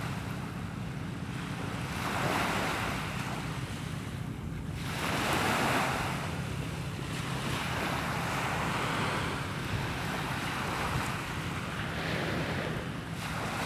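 Small waves washing in on a sandy beach, the surf swelling and falling back every few seconds, with wind buffeting the microphone.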